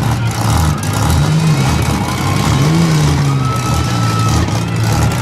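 Demolition derby cars' engines running loud and revving, their pitch rising and falling.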